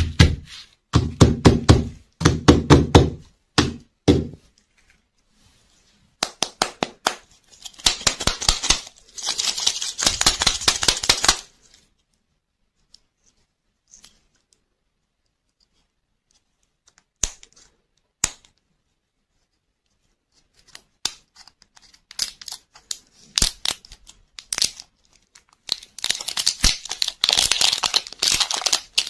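Fingertips rapidly tapping and knocking on plastic lollipop-ball shells. Then the printed plastic wrapper of a toy lollipop crinkles and tears as it is peeled off the white plastic ball, in two spells of dense crinkling separated by a long quiet stretch with a few single clicks.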